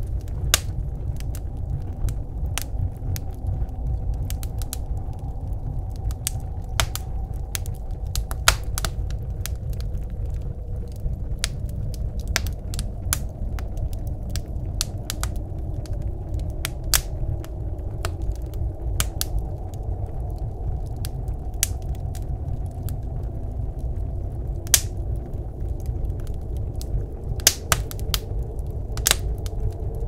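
Wood fire crackling in a wood stove, with many irregular sharp pops, over the steady low rumble of blizzard wind.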